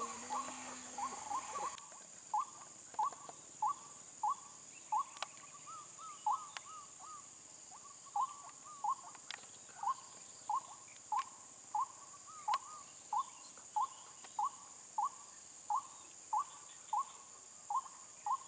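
White-breasted waterhen calling: a short, clipped note repeated over and over at an even pace, about one to two a second, with a few quicker double notes mixed in. High-pitched insects buzz steadily underneath.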